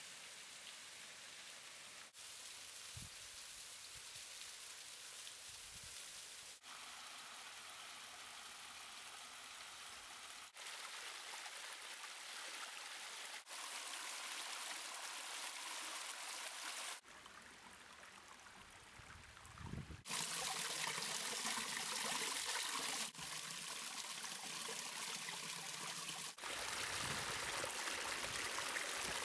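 Rainwater runoff flowing over volcanic rock slabs in a ravine bed, a steady rushing trickle. The ravine carries water only after days of heavy rain. The level jumps up and down at several cuts and is loudest in the last third.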